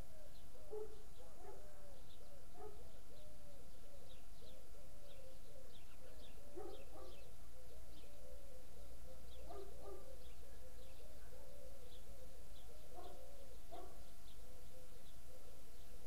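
Birds calling: a steady run of low, repeated arching notes, with short high chirps scattered over it and a few louder bursts of calling.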